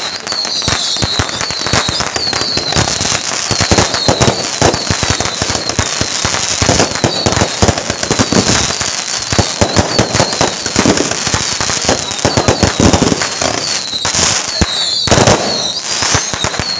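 Long strings of firecrackers going off, a dense, unbroken crackle of rapid pops with louder bangs here and there.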